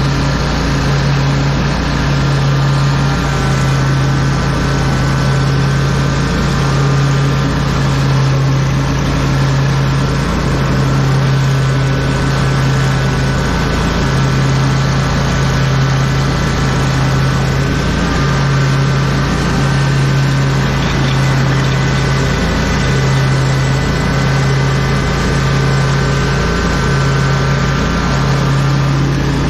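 Commercial lawn mower engine running steadily while mowing: an even, loud drone with a few steady higher tones above it.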